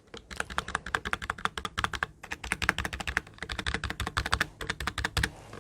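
Fast, hard typing on an NPET K10 membrane keyboard: a dense run of soft key clacks, several a second, stopping shortly before the end. The membrane keys, with no switches under them, keep the typing fairly quiet even under hard presses.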